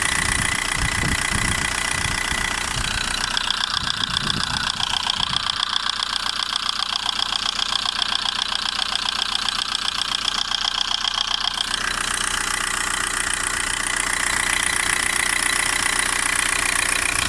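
Volkswagen Golf 1.9 TDI (AHF) four-cylinder diesel engine idling with a fast, even ticking or knocking from the upper engine, which the owner is not sure is an injector or a lifter. The ticking is crisper and more prominent from about 3 to 12 seconds in.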